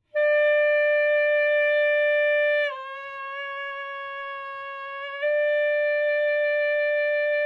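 Saxophone playing one sustained note, bent down in pitch about two and a half seconds in and held there more softly, then returning to the original pitch at full strength about five seconds in. The downward bend is made by voicing, not by the jaw, so the lowered pitch stays focused.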